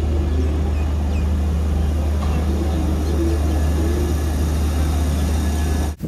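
Steady low hum of a stationary electric train at a platform, with a faint murmur of voices and a few brief high chirps over it.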